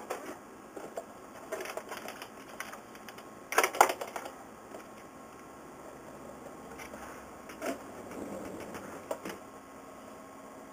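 Scattered clicks and knocks of vintage Numechron flip clocks being picked up and moved off a glass-topped desk, with a louder clatter about three and a half seconds in and a few lighter knocks later.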